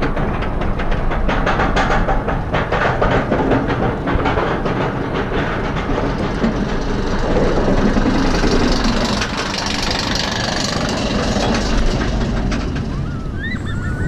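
Roller coaster lift-hill chain clattering in rapid clicks as the front-row car climbs, giving way to a steady rush of wind on the microphone past the crest, with a few short cries from riders near the end as the train tips into the drop.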